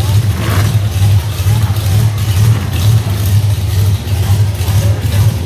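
Monster truck engine running with a deep, steady drone that swells and eases, over crowd noise in a large arena.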